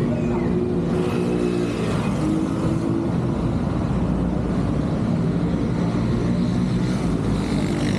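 Busy city street traffic: motor vehicle engines running close by, giving a steady engine hum over general road noise.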